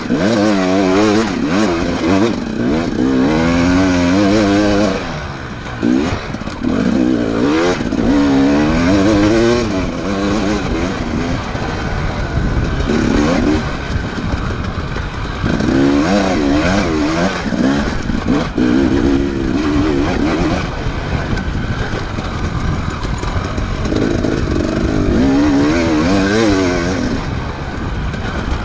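Enduro motorcycle engine revving hard and easing off over and over, its pitch rising and falling in quick waves, with a short lull about five seconds in.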